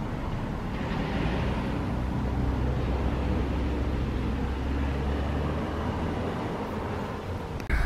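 Narrowboat engine running steadily at low speed, a low, even hum.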